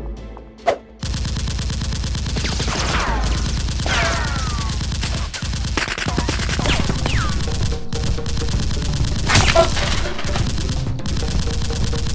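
Sustained rapid automatic gunfire, a single shot just under a second in and then an unbroken fast stream of shots from about a second in. Several falling whistles are heard among the shots.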